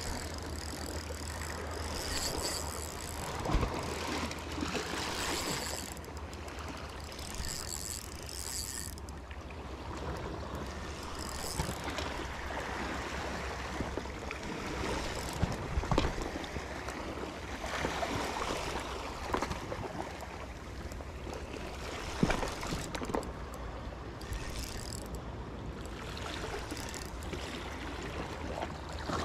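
Seawater lapping and sloshing over a steady low rumble, with a few sharp knocks scattered through.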